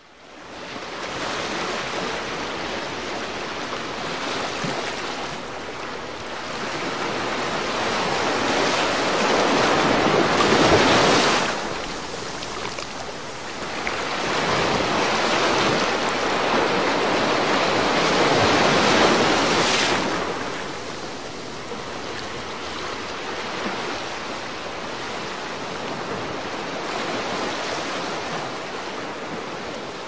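Sea surf: a steady rush of waves that swells twice, peaking about eleven and about twenty seconds in, each time falling back quickly, then settles to a lower, even wash.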